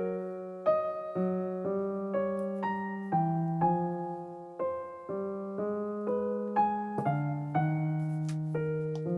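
Background piano music: notes and chords struck about twice a second, each dying away.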